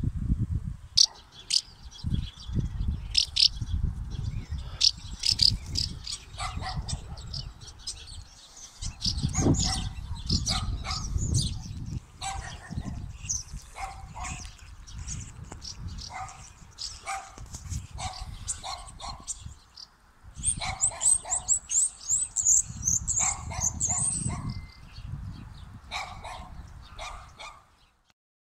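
House martins twittering, with many short high chirps and a run of quick falling twitters a little after the middle, over gusty wind rumbling on the microphone. A dog barks now and then.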